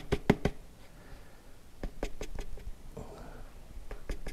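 Quick light taps of a plastic container as powder is tapped out of it into a plastic bowl, in short runs: several in the first half second, a few more about two seconds in and again near the end.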